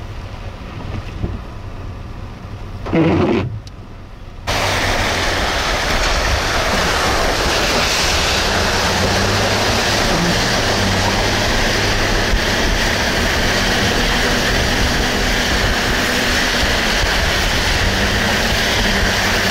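Steady vehicle road noise with a low engine hum while driving across a bridge over the flooded river, starting abruptly about four and a half seconds in. Before it there is quieter outdoor noise with one brief loud burst about three seconds in.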